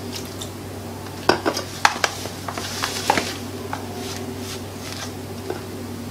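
Steel spoon stirring and scraping in a plastic bowl of dry wheat flour as water is worked in a little at a time to make a batter, with a few sharp clinks of spoon against bowl in the first half.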